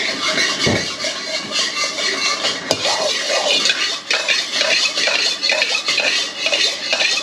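Metal spatula scraping and clinking in a steel wok as hot vegetable oil is swirled around on high heat, over a steady hiss that starts abruptly and runs on throughout.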